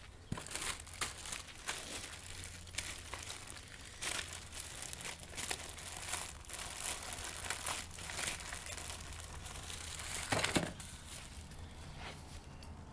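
Plastic bag crinkling and rustling as it is handled and torn open, in irregular crackles, with a louder crumple about ten seconds in.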